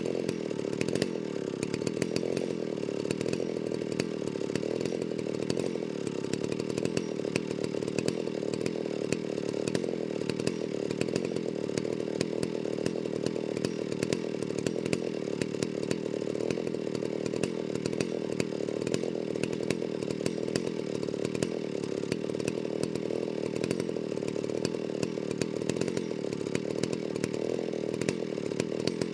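Chainsaw running at a steady, even speed, its pitch holding constant with no revving or slowing.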